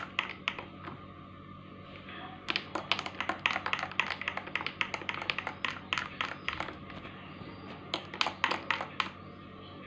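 Steel spoon stirring dalgona coffee into milk in a drinking glass, clinking against the glass in quick runs of taps: a few at first, a long fast run after a couple of seconds, and another short burst near the end.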